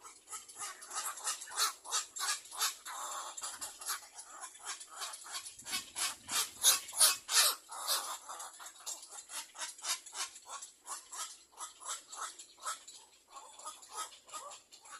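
Little black cormorant chicks giving harsh begging calls, a rapid run of short rasping notes several a second, loudest about halfway through.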